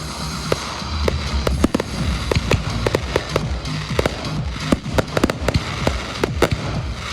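Fireworks finale: a dense, rapid string of bangs and crackles, several a second, with music playing underneath.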